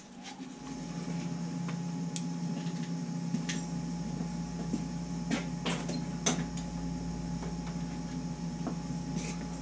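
A steady low mechanical hum sets in about half a second in and runs on, with a few scattered light clicks and knocks.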